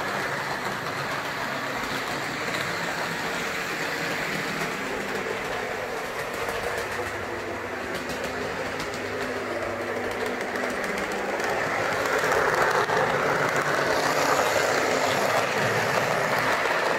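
Lima Class 156 model DMU's small DC motor whirring steadily as the model runs along the track, with light clicking of the wheels over the rails, getting louder about two-thirds of the way through. It runs smoothly and no longer stalls on the points, the sign that the serviced motor and the added rear-bogie pickup are working.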